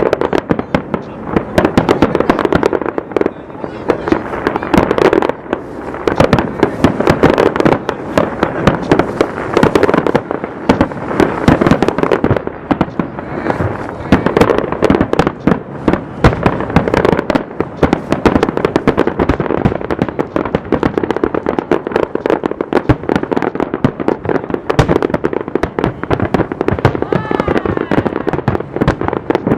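Fireworks display: a dense, unbroken barrage of aerial shell bursts, many explosions a second with their reports overlapping.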